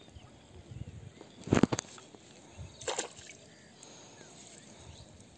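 Shallow paddy water sloshing and splashing as a fishing net is hauled through it by hand. Two louder, sharp splashes stand out, about a second and a half in and again at about three seconds.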